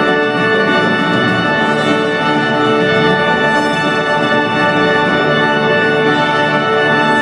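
A wind band playing a slow passage of long, held chords at a steady, full volume.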